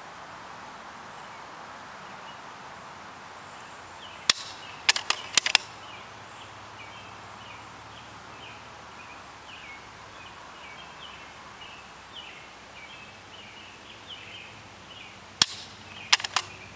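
Dry-firing a scoped rifle, twice: each time a single sharp click of the trigger releasing the unloaded firing pin, then, about half a second later, a quick run of clicks as the action is worked to recock it. Faint high chirps come and go in the background.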